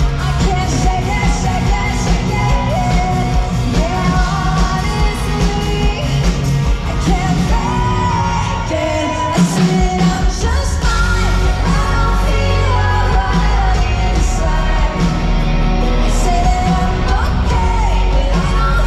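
A live rock band with a female lead singer, electric guitars, bass and drums, playing loud in a large hall. About nine seconds in the low end drops away briefly, then the bass and drums come back in heavier.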